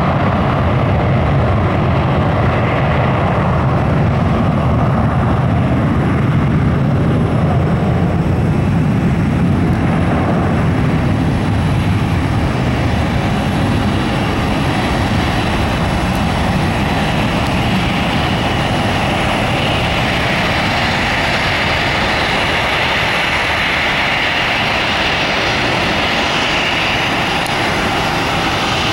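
Boeing 737-800's CFM56-7B jet engines at takeoff thrust during the takeoff roll and liftoff: a loud, steady roar. A deep rumble dominates the first half and gives way to a higher-pitched roar in the second half.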